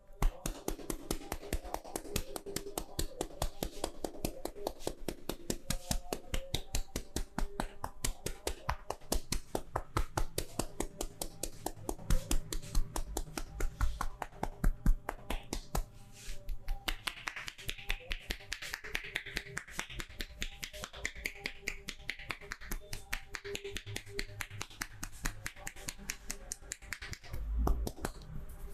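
Hands striking rapidly in a percussive massage: sharp claps or slaps, several a second, in a steady rhythm, with a few louder strikes partway through.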